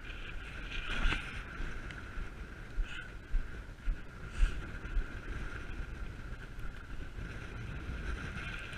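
Wind buffeting the microphone over water lapping at the bank, with a few brief thumps about a third and halfway through.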